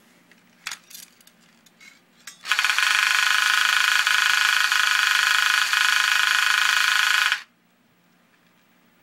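Vintage Cragstan S-58 tin toy space gun, battery-operated, buzzing loudly and steadily for about five seconds while its nose lamp lights, then cutting off suddenly. A few light clicks of the tin gun being handled come before it.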